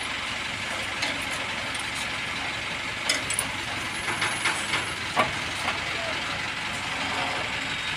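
Steady running engine noise with several short metallic clicks and knocks about three to five seconds in, as the crane's diesel engine is shoved into line with its clutch coupling.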